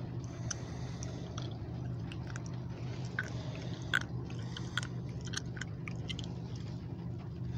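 Raindrops ticking irregularly on the car's windshield and roof, heard from inside the cabin, over a steady low hum.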